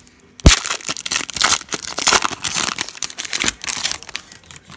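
Trading card pack wrapper being torn open and crinkled by hand, with a sharp knock about half a second in.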